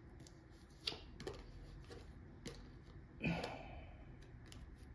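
A deck of tarot cards shuffled by hand: a few light clicks and taps of cards, with a brief, louder rustle of cards a little over three seconds in.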